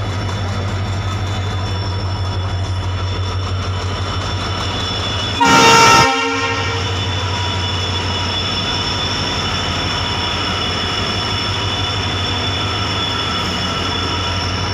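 WDP4D diesel locomotive running with a steady low engine drone as it rolls slowly through the platform, with one short horn blast about five and a half seconds in.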